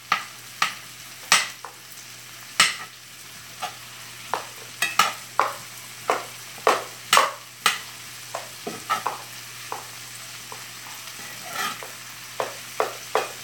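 Utensil stirring and scraping in a skillet of frying onions: irregular sharp scrapes, roughly one or two a second, over a steady sizzle.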